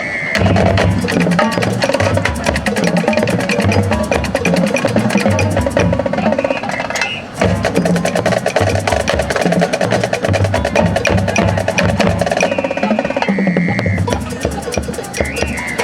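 Marching band playing Latin-style music: dense, driving percussion with low drum hits and sharp wood-block-like clicks under sustained horn lines. The sound dips briefly a little past the middle, then carries on.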